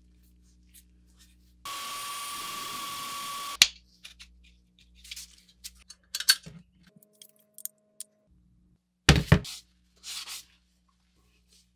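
A small electric drill runs steadily with a constant whine for about two seconds and cuts off with a click. Light clicks and taps follow as wooden handle pieces and small hardware are handled against a steel sickle blade, with a sharper knock about nine seconds in.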